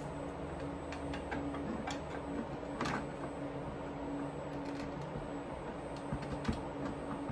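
Scattered light clicks and taps, with one louder knock about three seconds in and two sharp ticks near the end, over a steady low hum.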